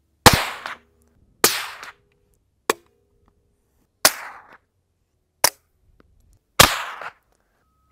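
.22LR gunshots fired from a bolt-action rifle, a Ruger Mk3 pistol and a Ruger 10/22 with supersonic and subsonic ammunition: seven sharp cracks spaced about a second or more apart. Four of them are louder with a short echoing tail, and three are brief and clipped.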